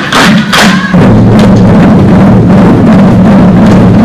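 A group of children playing wooden barrel drums with sticks: a few separate loud strikes, then about a second in a dense, continuous drum roll.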